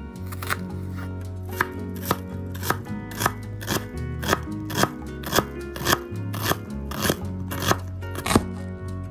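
Kitchen knife slicing through a red onion and striking a bamboo cutting board, crisp cuts about twice a second, with one harder cut near the end.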